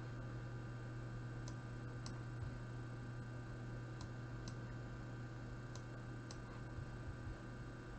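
Computer mouse clicking in pairs about half a second apart, one pair every two to three seconds, over a steady low electrical hum.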